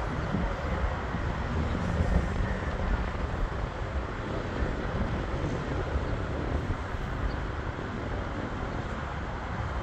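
Twin-engine business jet at takeoff power as it lifts off and climbs away: a steady, noisy rumble that slowly grows quieter.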